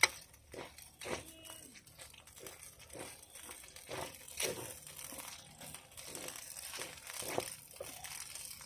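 Irregular crinkling and crackling with scattered short clicks; a sharp click right at the start is the loudest.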